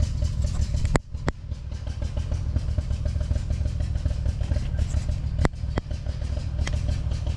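A small engine runs steadily in the background with a dense low rumble; the owner says it has water in the gas. A few sharp clicks come about a second in and again around five and a half seconds in.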